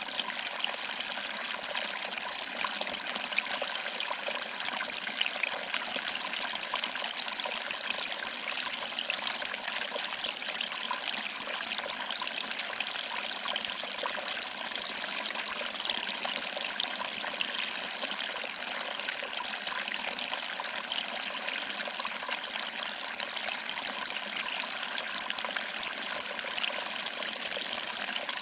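Small waterfall: water trickling over rocks and splashing into a pool, a steady, even rush with fine splashing.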